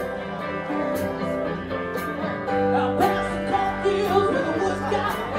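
Live band music: guitars and a singing voice over a steady beat.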